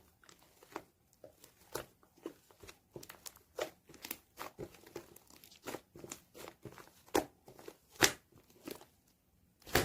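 Slime being squished and pressed by hand, giving irregular sticky pops and crackles several times a second, with a louder pop near the end.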